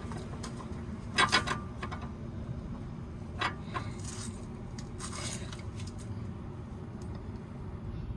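Hand tools clinking and scraping against metal while a wrench is fitted onto a sway bar link's bottom nut in a tight spot, in a few short clatters, the loudest about a second in.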